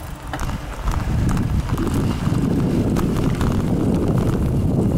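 Low rumble of handling and wind noise on a moving camera's microphone, with light knocks roughly every half second.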